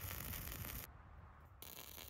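Stick (shielded metal arc) welding arc crackling and hissing as an electrode burns on steel plate, in two stretches with a short lull about a second in.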